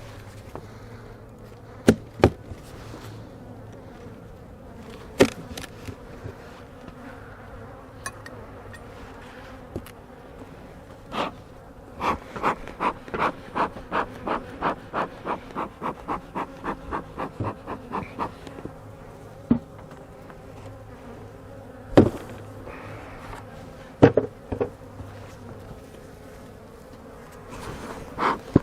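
Honey bees humming around an opened hive, with a sharp knock of wooden hive parts now and then. In the middle comes a rapid run of about three puffs a second from the bee smoker's bellows being pumped.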